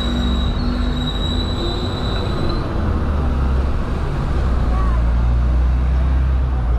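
Hong Kong double-decker tram running on its rails with a steady low rumble. A thin, high-pitched wheel squeal rings over it for the first two and a half seconds, then stops.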